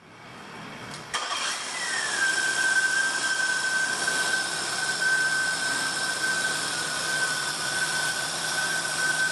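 Nissan Quest's 3.3-litre V6 starting about a second in, then idling steadily with a high whine that drops slightly in pitch as the idle settles. It runs smooth, the cylinder 4 misfire cured by a new distributor.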